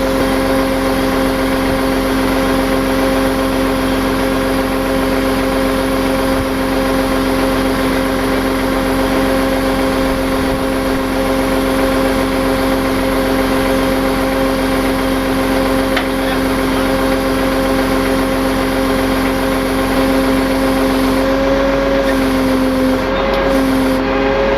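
Tow truck engine running at a steady speed, with a constant hum. The pitch wavers slightly near the end.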